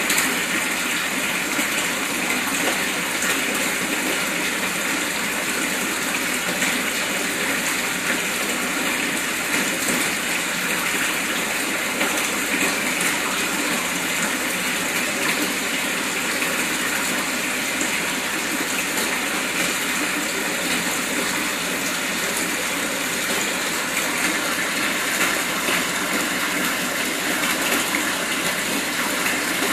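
Aquarium airstone on an air line bubbling steadily in a shallow tank: a continuous rushing of air bubbles breaking at the water surface.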